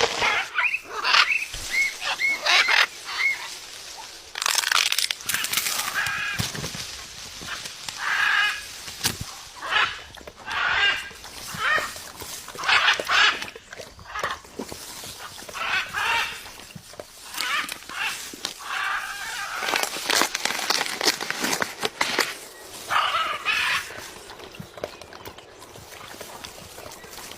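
A bird calling over and over, short pitched calls coming every second or two, with scattered clicks between them.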